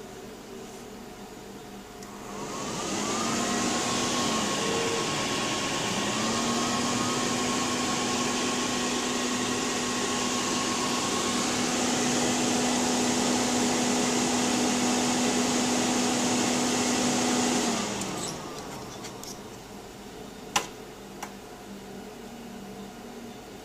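Power Mac G5's cooling fans spin up about two seconds in to a loud, steady whir with a hum, run for about fifteen seconds, then wind down, as the computer fails to start. A sharp click follows a couple of seconds later.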